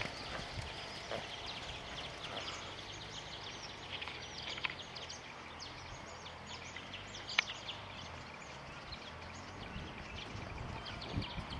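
Small birds chirping and twittering continuously over faint outdoor background noise, with a couple of louder chirps midway.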